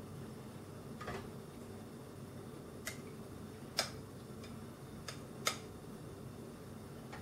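Metal kitchen tongs clicking and tapping against a glass bowl and a roasting tray as chicken drumsticks are lifted and set down: about six sharp clicks, the loudest about four and five and a half seconds in, over a steady low hum.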